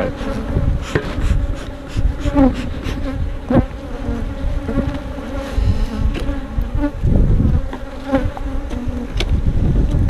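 Honeybees buzzing in large numbers around an opened hive: a loud, steady, wavering drone, with a few sharp knocks now and then. The colony is a defensive, mean-tempered one.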